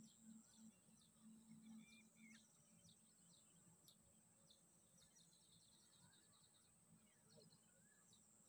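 Near silence with faint outdoor ambience: a few faint bird chirps over a steady high-pitched whine and a low hum.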